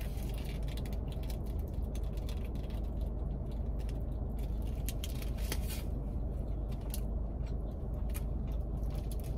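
Close-up chewing and biting of a burrito, wet mouth clicks and crackles, with the foil wrapper crinkling in the hands, over a steady low hum.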